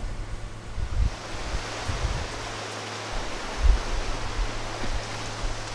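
Rushing water of shallow river rapids, with gusts of wind buffeting the microphone.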